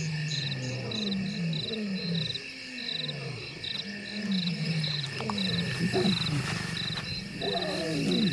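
Lion giving a run of low, falling grunts, about two a second, turning into more irregular growling calls in the second half. Behind it, night insects keep up a steady high chorus with quick, regular chirps.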